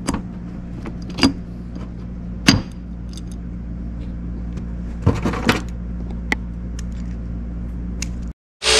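Light metal clicks and clinks from the Allen screws and aluminum mounting block of a starter being handled and turned, over a steady low hum. Near the end the sound cuts out and a loud hiss begins.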